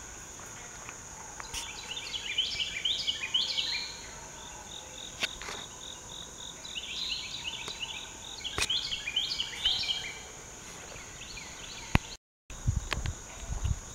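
Groups of short, high-pitched yipping calls, each burst about two seconds long, repeated several times from an unseen animal that the recordist takes for a coyote. A steady high insect drone runs underneath, and footsteps come in near the end.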